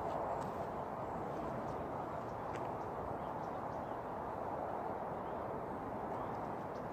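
Steady outdoor background noise, an even hiss, with a few faint light ticks scattered through it.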